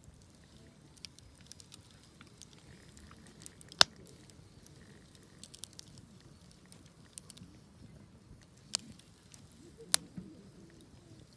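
Wood campfire crackling: scattered small ticks and snaps, with three louder sharp pops, the strongest about four seconds in and near the end.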